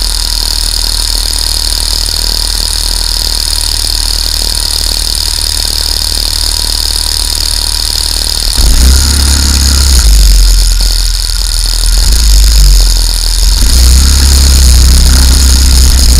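Go-kart engines running on the grid. About eight seconds in the nearest kart's engine gets louder and revs up and down as the karts pull away.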